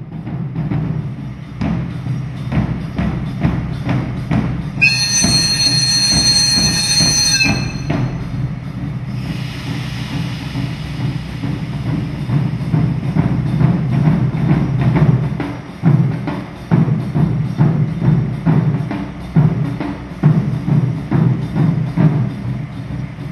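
Rhythmic drumming with rapid strikes over the steady low running of a DE10 diesel locomotive's engine. About five seconds in, a high-pitched ringing tone sounds for nearly three seconds.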